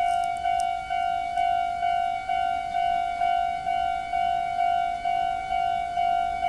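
Japanese railway level-crossing alarm: an electronic warning bell striking its tone steadily, about two strokes a second, to signal that a train is approaching.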